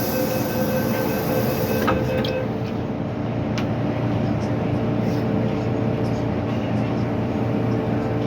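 MTR M-Train subway car running, a steady rumble of wheels and rails with a hum throughout. A whine and a high hiss stop with a click about two seconds in, leaving the rumble.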